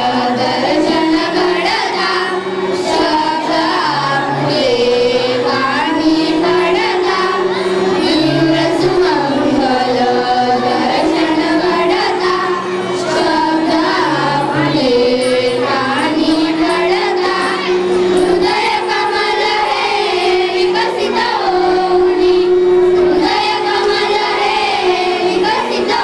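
A group of schoolchildren and a woman singing a song together, one held, gliding melody line.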